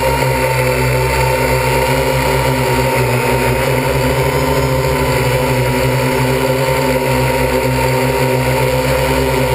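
MikroKopter L4-ME quadcopter's electric motors and propellers running steadily in flight, heard close up from the onboard camera: an even whine of several tones over a low buzz, the pitch wavering slightly as the motors adjust.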